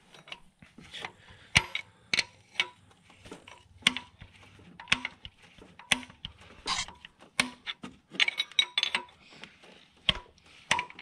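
Hand tools working bolts on an engine's cylinder head: sharp metallic clicks and clinks, irregular, about one or two a second, with a quicker run of clicks about eight seconds in.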